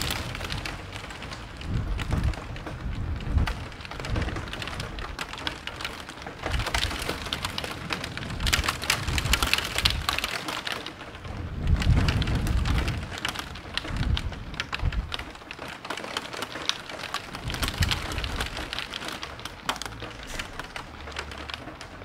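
Heavy rain falling steadily, with several low rolls of thunder; the longest and loudest rumble comes about twelve seconds in.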